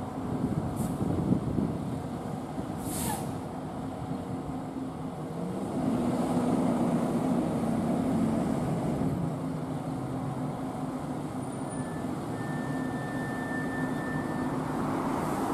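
Pierce fire engine's diesel engine running and pulling away, its note rising and growing louder about six seconds in as it moves off. A short air-brake hiss comes about three seconds in.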